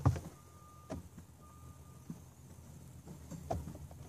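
Two steady, single-pitched electronic beeps about a second apart, stopping about two seconds in, over a few soft knocks and rustles of someone shifting about in a truck cab.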